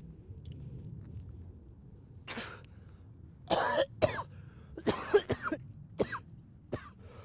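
A person coughing in a series of short, rough fits that start about two seconds in, with gaps between them.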